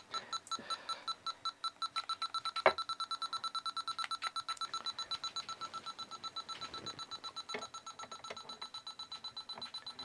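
A handheld halogen refrigerant leak detector ticking fast and evenly, about eight ticks a second, over a faint steady tone while its probe is worked around the fridge's refrigerant fittings. It never speeds up into an alarm: the system holds too little gas to trip it.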